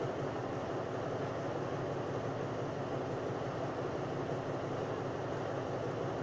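Diesel-electric locomotive of a Thai express train idling while standing, a steady low engine hum.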